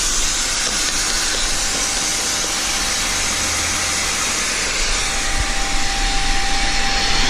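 Shop vac running steadily on blow mode, a constant rushing motor noise with a low hum, pushing air into an aircraft piston engine's exhaust system to pressurize it for a leak check.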